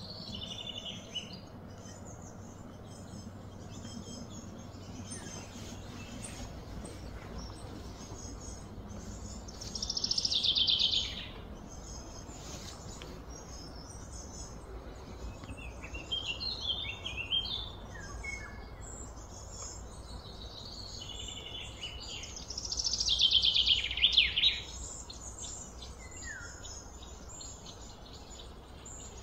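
Birds chirping and singing, with two louder trilled songs that fall in pitch, about a third of the way in and again about three quarters through, over a steady low hum.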